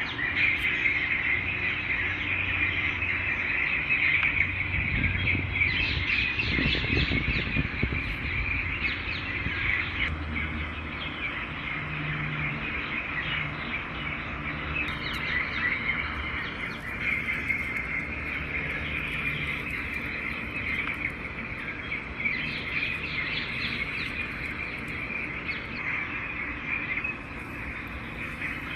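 Birds chirping and calling continuously in a dense outdoor chorus, with some low rumbling in the first third.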